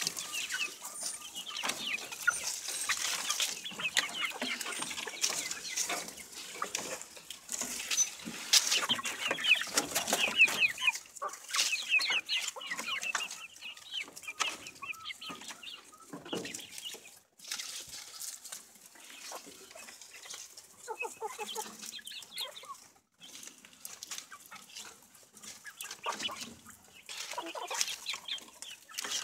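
A small flock of chickens clucking and peeping over one another in a continuous chatter of short, fairly high calls, with frequent clicks and rustling among them.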